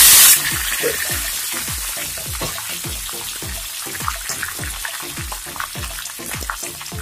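Tempering of mustard seeds, dry red chillies and curry leaves frying in hot oil. A loud hiss of sizzling drops off sharply just after the start, then quieter sizzling with scattered pops continues. Background music with a steady low beat plays underneath.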